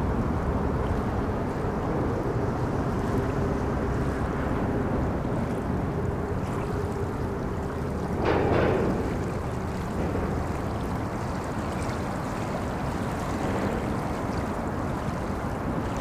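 Steady low wash of river water mixed with the rumble of road traffic crossing a bridge, with a louder swell about halfway through.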